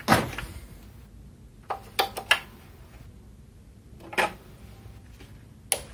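Several sharp clicks and knocks, the loudest just after the start, then a cluster near two seconds in and single ones later, as the Sharp C1490 CRT television is switched on and handled. The set's relay clicks in and the filament lights, but the TV gives no sound of its own, which is its fault.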